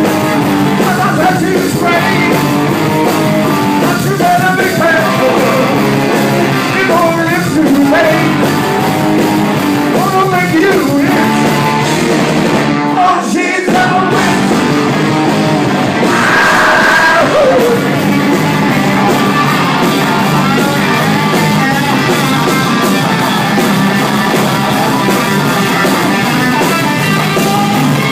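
Garage rock band playing live, with a shouted lead vocal over electric guitar, keyboard and saxophone. About halfway through the band drops out for a moment, then a high yell slides downward.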